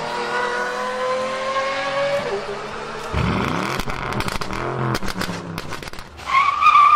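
Racing car sound effects: an engine revving with slowly rising pitch, then a car rushing past with a falling pitch, and a loud tyre squeal about six seconds in.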